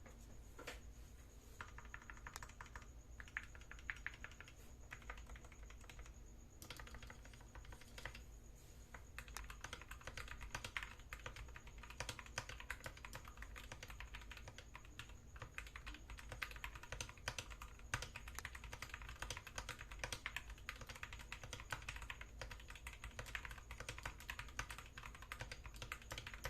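Typing on a Skyloong SK64S mechanical keyboard with Gateron optical brown tactile switches: a continuous stream of key clicks with a few louder strokes among them.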